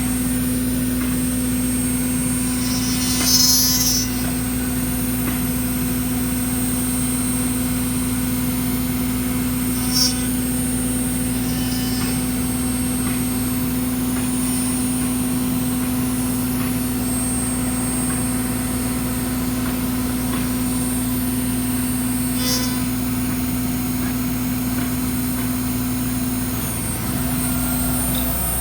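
CNC wood router running steadily, its spindle giving a constant hum as it carves, with a few brief higher-pitched sounds about 3, 10 and 22 seconds in and a short dip near the end.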